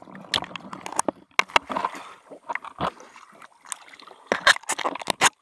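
Water splashing and sloshing at the side of a small boat, with irregular sharp knocks and clatters against the hull.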